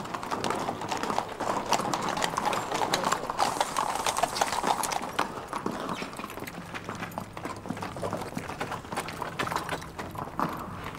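Hooves of several horses clattering on stone paving as horse-drawn chariots come in, a dense irregular clip-clop that is loudest a few seconds in and then eases off.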